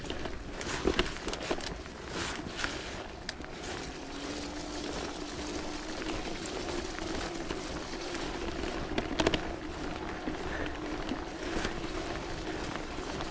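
Bafang BBS01 mid-drive e-mountain bike being ridden down a muddy trail: a steady hum that sinks in pitch about four seconds in and slowly climbs back, under rattling and sharp knocks from bumps, the loudest about nine seconds in.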